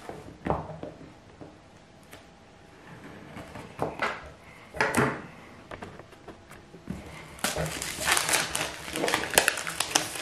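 Cardboard retail packaging being handled: a few separate knocks and scrapes of the box, then from about seven seconds in a dense crackling and scraping as the inner box is slid out of its sleeve.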